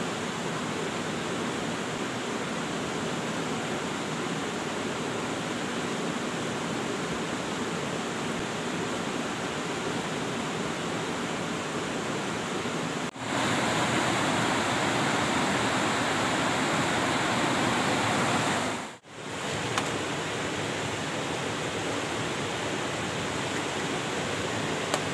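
Steady rushing noise of running water, with a louder stretch from about halfway through that breaks off abruptly a few seconds later.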